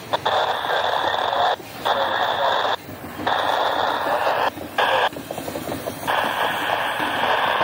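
Scanner radio picking up a railroad radio channel: a crackly, static-filled transmission that keys on and off several times, cutting out abruptly between bursts.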